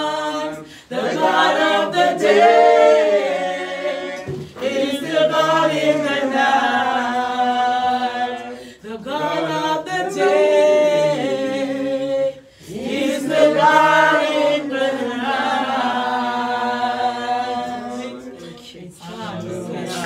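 Slow a cappella gospel singing in long held notes, phrase after phrase with short breaks between them, dying down near the end.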